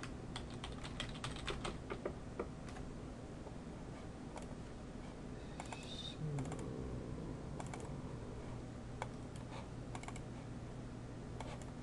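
Computer keyboard typing: a quick run of keystrokes in the first couple of seconds, then scattered key clicks, over a faint steady low hum.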